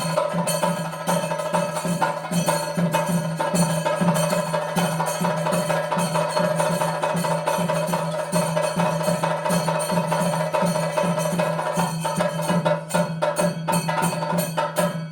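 Traditional Kerala percussion accompaniment: drum and small hand cymbals play a fast, even rhythm over a steady held drone tone.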